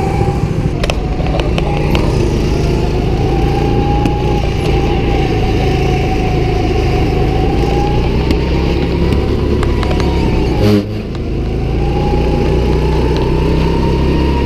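Go-kart's small engine running at speed, its whine rising and falling as the throttle is eased and reapplied through the corners. About two-thirds of the way through there is a short knock, the engine note drops, then climbs back.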